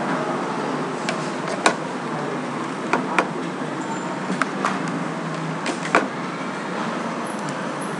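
Steady background hiss with about eight sharp computer mouse clicks at irregular spacing through the first three quarters.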